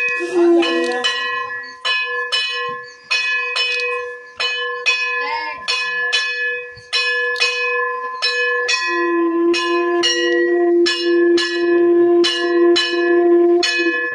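Brass puja bell struck by hand about twice a second, each strike ringing on into the next, for a ritual welcome. A second, lower steady tone is held for about five seconds in the second half.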